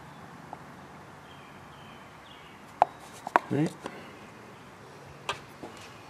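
A few sharp clicks and light taps of a tube of bearing lube and small parts being handled against a crankshaft journal in an engine block. A brief rising vocal sound comes about three and a half seconds in.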